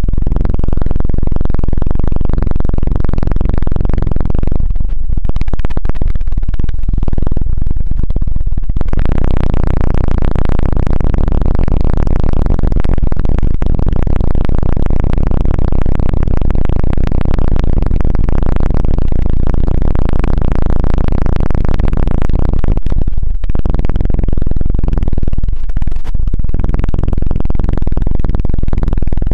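ASMR 'helicopter' trigger: hands rapidly patting and rubbing the microphone's earpad covers right against the mic, a loud, fast, low thudding flutter. It thins out briefly a few times but never stops.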